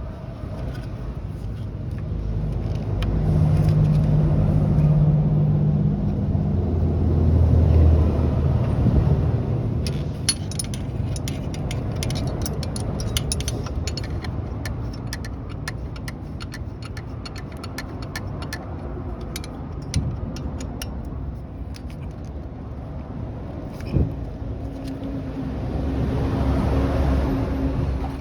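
Suzuki Jimny JB23's engine running, its sound swelling a few seconds in and again near the end, with a spell of rapid clicks and ticks in the middle.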